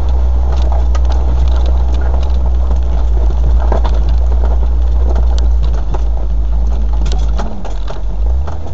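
Land Rover on the move: a steady low rumble with scattered knocks and rattles; the rumble eases briefly near the end.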